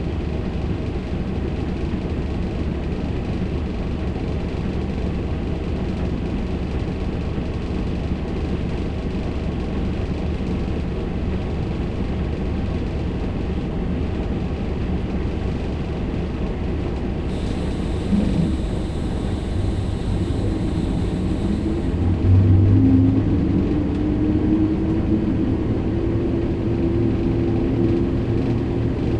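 Volvo B58 bus's diesel engine and running noise heard from inside the passenger cabin: a steady low rumble. About 22 s in the engine note grows louder and its pitch rises slowly over the following seconds.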